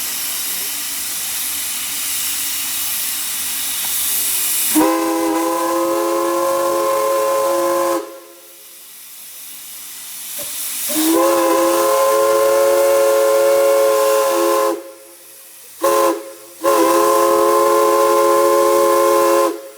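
Steam hissing steadily for the first few seconds, then a chime steam whistle sounding a chord of several notes in four blasts: a long one about five seconds in, another long one about eleven seconds in, a short toot, then a final long blast. Each blast slides up slightly in pitch as it opens.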